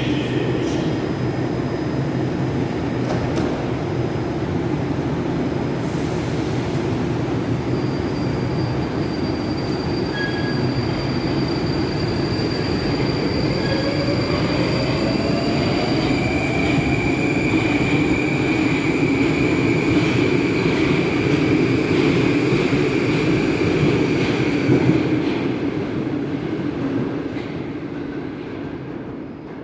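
Moscow metro 'Moskva-2020' (81-775/776/777) train running at a station, with a rumble of wheels and equipment; its drive whine glides upward in pitch as the train pulls out and speeds up. The sound fades out near the end.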